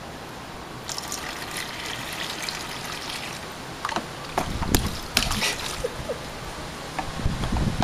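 Water trickling and splashing in a child's plastic water table as a plastic cup is dipped in and poured, with a few sharp splashes or knocks about four to five seconds in.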